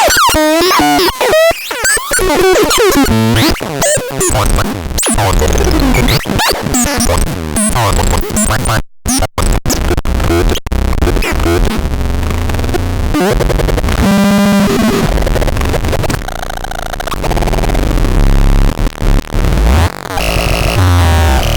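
Chaotic electronic noise from the Magardan Ardnach CN 6010: wobbling, warbling pitch sweeps give way to dense glitchy buzzing and clicking, with a brief dropout about nine seconds in. In the second half a deep low drone comes in under stuttering, chopped tones.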